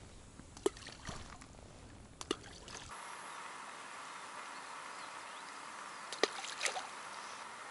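Faint outdoor background by calm water, with a few light clicks and taps from fishing tackle being handled at the bank.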